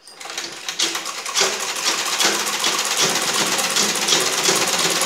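Domestic sewing machine stitching fabric, starting up right at the beginning and running at a steady, rapid clatter.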